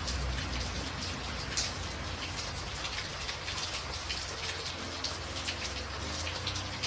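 Steady rain falling, with many separate drops striking a surface in quick, irregular ticks over a continuous hiss and a low rumble underneath.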